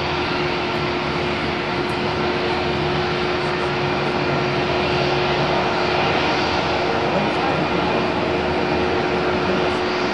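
Jet airliner engines at takeoff thrust, a steady rush of noise that swells slightly around the middle, with a steady hum underneath.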